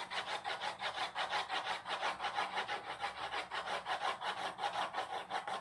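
Graphite pencil scratching back and forth on drawing paper clipped to a drawing board, in a fast, even rhythm of about four or five strokes a second: hatching strokes laid over one another to build up the dark tone of a cone's cast shadow.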